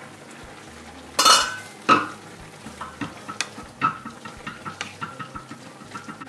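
A wooden spatula stirring simmering vegetables in a wok, knocking and scraping against the pan: two loud clatters a little after a second in, then a run of quick light taps.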